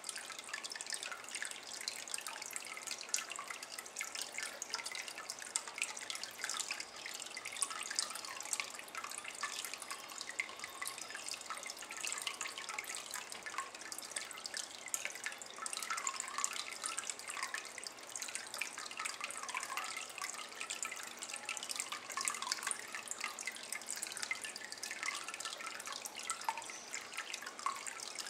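Water trickling and dripping into a shallow glazed ceramic bowl of standing water, a steady patter of small splashes and plinks.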